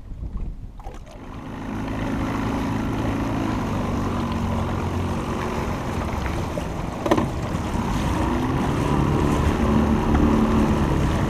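Boat motor running as the boat moves across choppy water, coming up about a second in and holding steady, with wind buffeting the microphone. A single sharp knock about seven seconds in.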